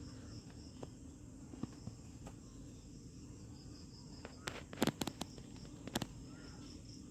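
Faint soft taps and clicks of a cloth patting boiled potato slices dry on a towel, a few sharper ones clustered about two-thirds of the way through, over a low steady hum.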